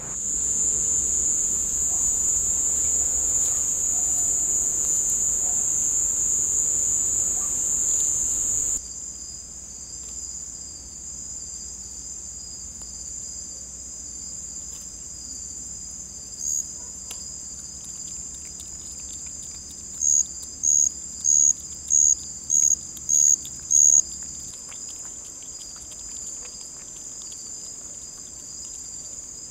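Night-time insect chorus: a steady, high-pitched trilling, loud for roughly the first nine seconds and then quieter, with a second, lower trill beneath it. About twenty seconds in, a nearby insect gives a run of seven short, loud chirps, a little under two a second.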